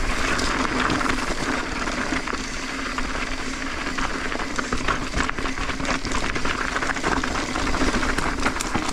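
Mountain bike rolling fast down a rocky dirt singletrack: tyres running over gravel and stones with many short rattles and knocks from the bike, denser in the second half, over a steady rush of wind on the microphone.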